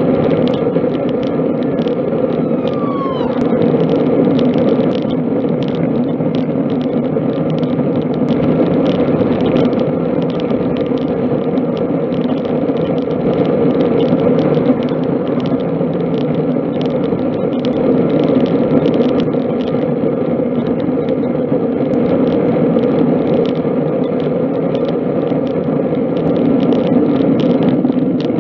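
Steady rush of wind and tyre noise picked up by a camera mounted on a moving road bike, with a brief falling squeak about three seconds in.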